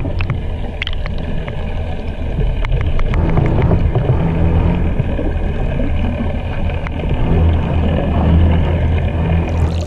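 Steady low underwater rumble, a deep drone with a few faint ticks.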